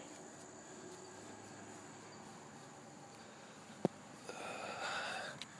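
Faint outdoor background with a steady, high-pitched insect drone. A single sharp click comes about four seconds in, followed by about a second of soft scuffing or rustling noise.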